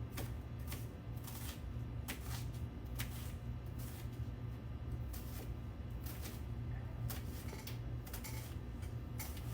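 Kitchen knife cutting an onion on a cutting board: irregular sharp knocks, about one or two a second, over a steady low hum.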